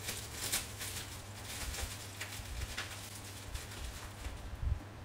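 Plastic bubble wrap crinkling and rustling as a small parcel item is unwrapped by hand, in irregular crackles that are busiest in the first few seconds and thin out toward the end.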